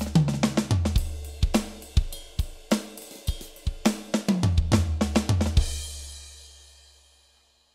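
Drum fill on an Alesis Strike Pro SE electronic drum kit: quick runs around the toms that step down in pitch, mixed with kick and snare hits. It ends on a last hit about five and a half seconds in, which rings and fades away.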